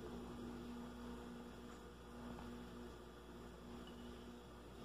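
Faint steady low hum, its tone wavering and briefly dropping out now and then, over quiet room noise.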